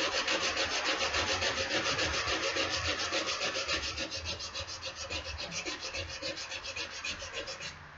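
Abrasive paper scrubbed by hand over the rusty steel of an old axe head, in fast, even back-and-forth strokes, several a second, that stop shortly before the end. The rasping is the rust being sanded off the metal.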